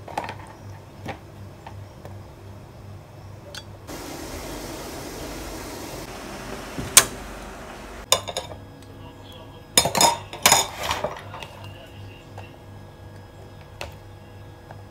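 Metal pans and kitchen utensils clinking and knocking, with a cluster of clatters about ten seconds in. Earlier there is a steady hiss lasting about four seconds, and one sharp click, the loudest sound, near the middle.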